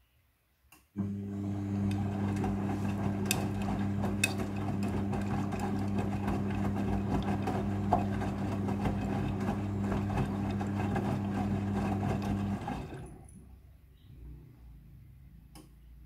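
Midea front-loading washing machine turning its drum during the rinse cycle. The motor starts about a second in with a steady low hum, while wet laundry and water swish around the drum. It stops a few seconds before the end, and the sound fades as the drum comes to rest.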